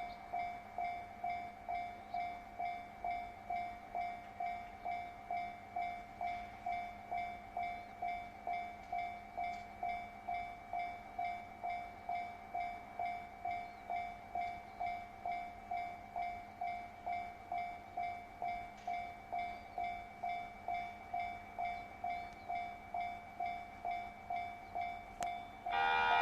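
Japanese railway level-crossing warning bell ringing its steady repeated ding, about one and a half to two strikes a second, warning that a train is approaching. Just before the end a loud sustained horn cuts in over it.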